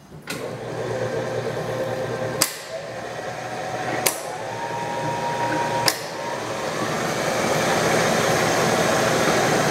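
Allen variable-speed industrial drill press running, with three sharp clicks a couple of seconds apart. Then the twist drill bites into a metal bar held in a vise, and the cutting noise grows steadily louder over the last few seconds.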